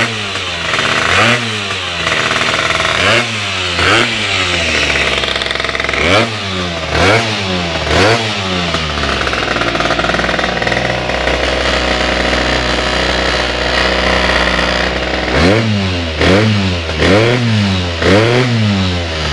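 Malossi MHR Team II–kitted two-stroke Peugeot Speedfight scooter engine revved on the stand in quick throttle blips, about one a second, each rising and falling in pitch. Partway through it is held at a steady speed of around 5000 rpm for several seconds, then blipped again rapidly near the end.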